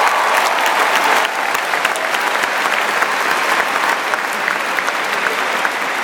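Large crowd applauding, with cheering that fades out about a second in, leaving dense clapping that slowly dies down.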